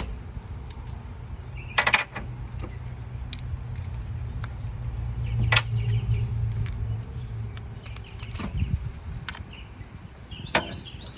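Hand tools clicking and clinking against metal engine parts as the water pump's screws are worked loose, a few sharp knocks standing out. A steady low rumble underneath swells a little about halfway through.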